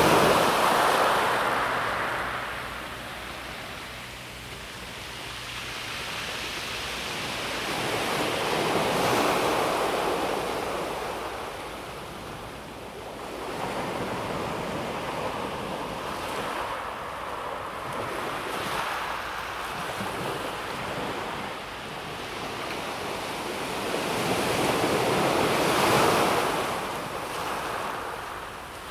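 Calm sea waves washing onto a pebble beach: a steady hiss that swells and fades slowly as each wave comes in, louder about a second in, around nine seconds and around twenty-six seconds.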